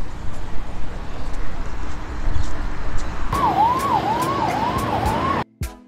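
Steady outdoor background noise, then a little past halfway a siren wail that sweeps down and back up about twice a second, cut off suddenly near the end.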